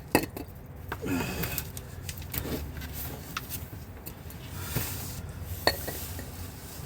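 A handful of separate sharp clinks and knocks of hand tools and metal parts being handled, with the loudest one just after the start.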